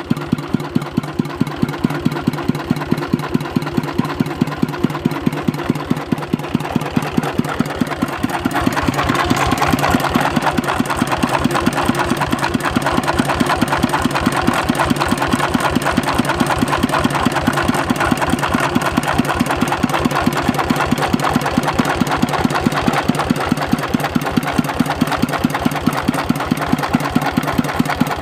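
Dongfeng S195N single-cylinder diesel engine running steadily, its firing strokes making a fast, even beat. About nine seconds in the clatter becomes louder and harsher.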